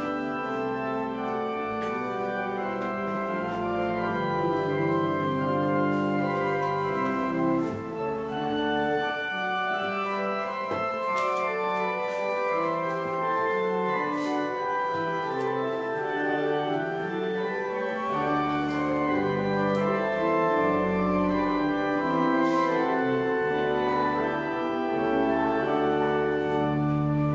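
Organ playing a slow piece of held, overlapping chords that change every second or two.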